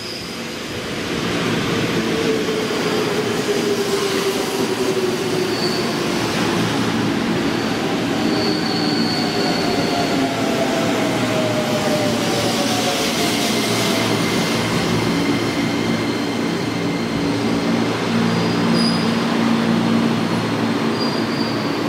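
205-series electric commuter train pulling into a platform and slowing, with the steady running noise of the cars passing close by. Whines fall in pitch as it brakes.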